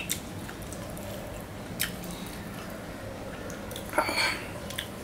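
Mouth sounds from the last of a meal: a few sharp lip smacks and chewing clicks, with a louder, breathier smack about four seconds in.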